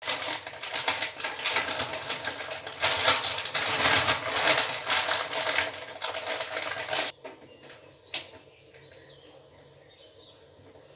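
Plastic packet of dates crinkling and rustling as it is handled and emptied onto a plate, stopping abruptly about seven seconds in. After that only faint handling sounds and a single sharp click.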